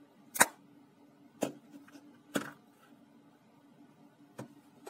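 A Samsung flip phone being handled: four sharp plastic clicks and knocks about a second apart, the first the loudest, as the phone is folded shut and set down on a wooden table.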